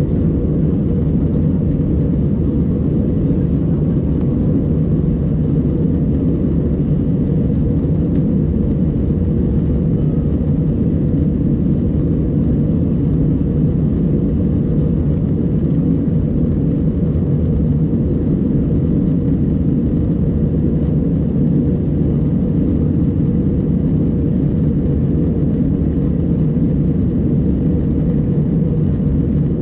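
Steady low drone of an Airbus A320 cabin in flight: engine and airflow noise heard from inside at a window seat, even and unchanging.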